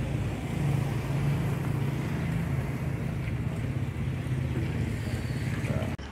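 Motorcycle engine idling steadily, a low even hum that stops abruptly near the end.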